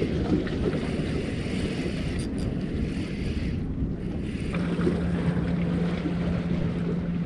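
Wind buffeting the microphone over the wash of sea water, with a steady low hum coming in about two-thirds of the way through.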